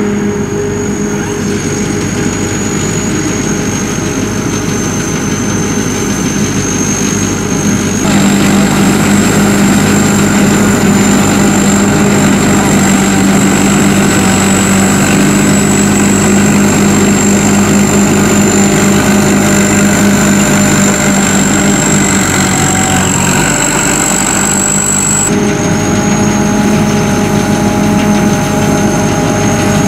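SAKPATTANA SS-200 mini combine harvester running, a steady engine sound with a high, thin whine over it. The sound jumps louder about 8 seconds in and drops back abruptly near the end.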